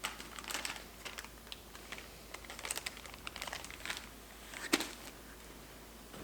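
Hands handling a pair of over-ear headphones and their carrying case: irregular light clicks and rustles, with one sharper click nearly five seconds in.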